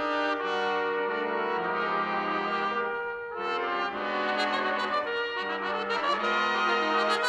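A trumpet ensemble playing slow, sustained chords that shift every second or so, with a short gap in the sound a little over three seconds in.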